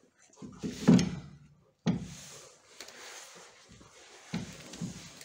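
Metal knocks and scraping as a car's rear drum brake assembly, its four mounting bolts removed, is worked loose and pulled off the rear arm. The loudest knock comes about a second in, with more near two seconds and between four and five seconds.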